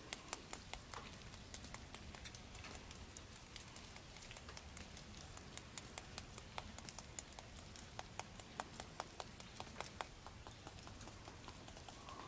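Melting snow and ice dripping from tree branches: a faint, irregular patter of drops and small ticks, several a second.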